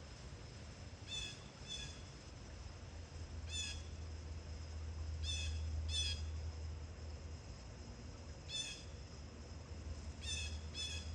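A bird giving short, harsh calls, about eight in all and mostly in close pairs, over a steady low rumble of wind.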